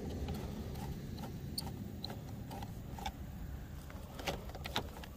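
Small clicks and scrapes of a flathead screwdriver backing a screw out of a license plate and the loosened plate being handled, with a few sharper clicks near the end, over a steady low rumble.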